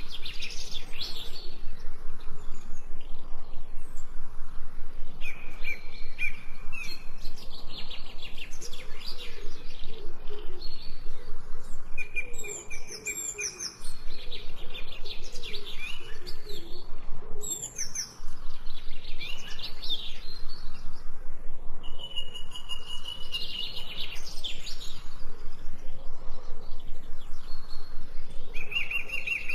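Many small songbirds chirping and singing together in a dense, near-continuous chorus of short high chirps and trills, with two brief lulls.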